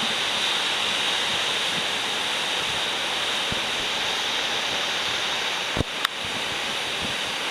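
Heavy surf from a typhoon swell: a steady rush of breaking waves on the Pacific shore, with wind on the microphone. A brief knock about six seconds in.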